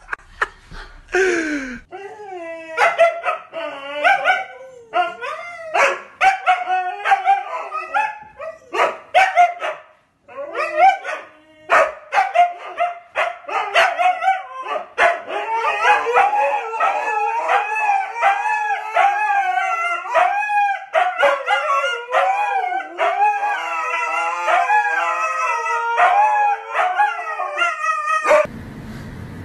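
Huskies vocalizing, a long run of short howls, woos and yips that slide up and down in pitch and often overlap. The run starts about two seconds in and stops abruptly near the end.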